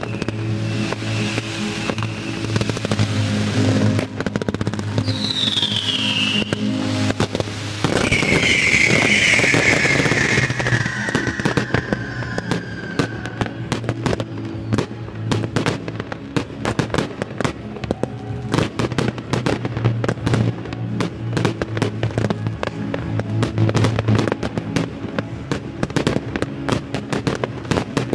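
Fireworks display over steady music: two whistles falling in pitch about five and eight seconds in, the second longer, then from about halfway on a dense, rapid crackling of many small reports as gold crackling stars burst.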